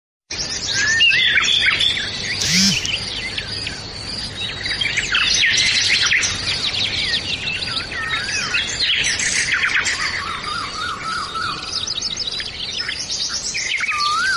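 Many birds chirping and calling at once, a dense chorus of short rising and falling chirps; around ten seconds in, one bird repeats a quick run of evenly spaced notes.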